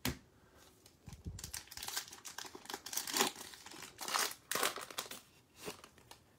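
Foil wrapper of a Prizm basketball retail card pack being torn open and crinkled by hand: a short tap at the start, then a few seconds of irregular crinkling and tearing.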